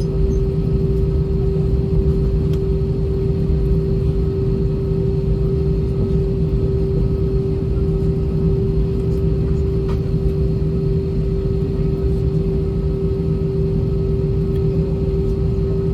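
Cabin noise of an Airbus A320-232 taxiing, its IAE V2500 engines at idle. It is a steady rumble with one steady hum over it.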